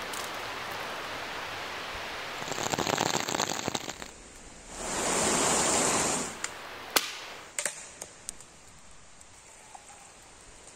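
Rushing mountain stream, heard for about a second and a half in the middle, between a stretch of crackling before it and a few sharp clicks after it.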